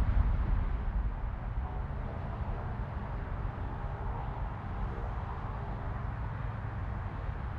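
Jet airliner engines at takeoff thrust heard from a distance: a steady low rumble with a faint whine.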